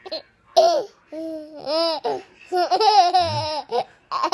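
High-pitched laughter and drawn-out 'aah' calls that rise and fall in pitch: the playful wind-up of silly fake sneezes.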